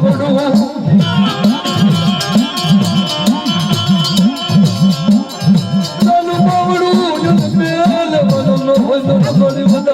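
Gujarati devotional folk music: a fast, steady percussion rhythm under a wavering, ornamented melody line.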